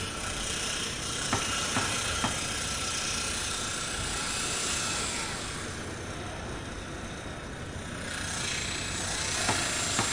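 Construction-site machinery, a tractor engine running steadily, with a few short sharp knocks a second or two in and again near the end.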